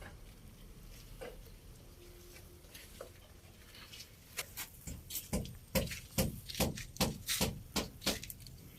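A regular series of sharp knocks, about two to three a second, starting about halfway through and growing louder, like a hand tool striking during building work.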